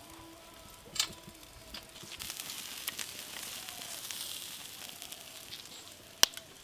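Whole beef carcass spit-roasting over glowing charcoal, with a sizzling hiss that swells in the middle. Two sharp cracks stand out, one about a second in and a louder one near the end.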